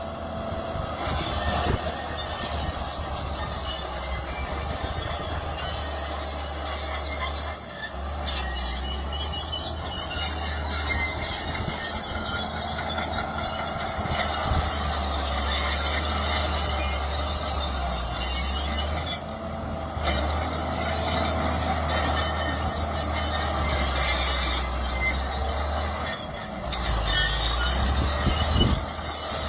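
Excavator running under load, its diesel engine droning steadily beneath a high metallic squeal. The sound breaks off briefly three times and picks up again.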